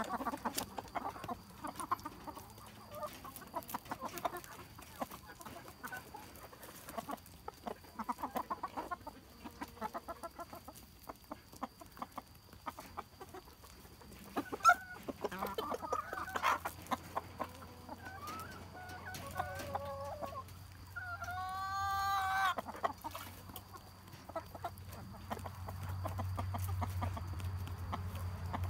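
Araucana chickens clucking, many short clucks, with one long drawn-out call about two-thirds of the way through. A low steady hum builds toward the end.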